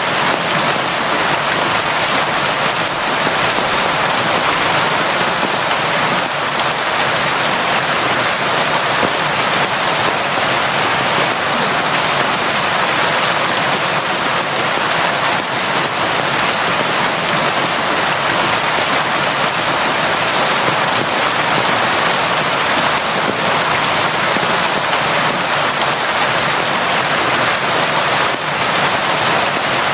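Constant rain falling, a steady even hiss that does not let up.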